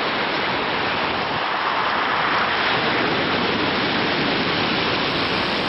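Sea surf washing onto a pebble beach, a steady rush of water noise.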